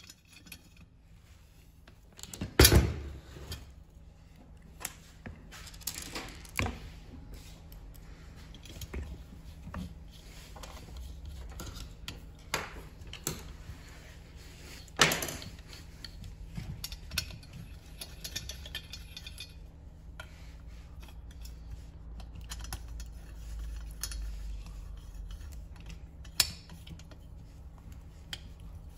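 Metal parts and hand tools clinking and knocking while a part is fitted back onto a two-stroke brushcutter engine during reassembly. The handling comes in scattered short knocks and clicks, the sharpest about 3 seconds in and again about halfway through.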